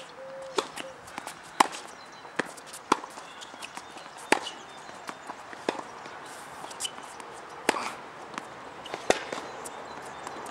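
Tennis rally on a hard court: the ball struck back and forth by racquets, sharp pops about every one and a half seconds, with quieter ball bounces between the hits.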